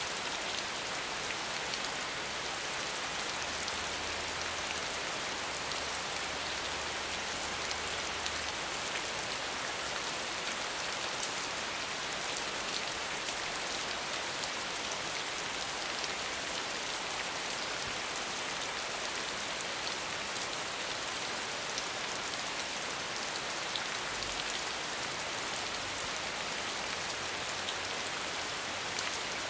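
Steady rain falling on the ground: an even hiss of rainfall flecked with many small drop impacts.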